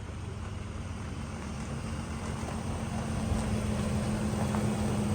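Vehicle engine running steadily: a low hum with a constant tone that slowly gets louder.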